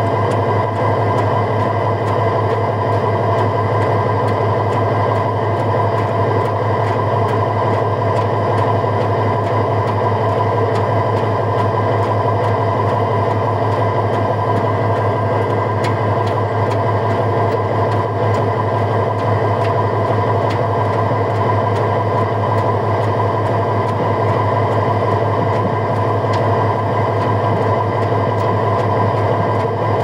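Fishing boat's engine running steadily under way, an unbroken drone with a low hum and a fixed higher whine.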